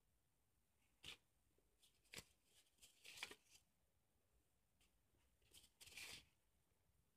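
Sheets of cut-out paper drawings rustling and crackling as they are handled and lifted from a pile, in a few short, faint bursts, the longest around three and six seconds in.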